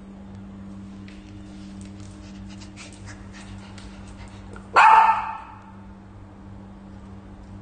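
A small dog gives one short, loud bark about five seconds in, after a run of light clicks.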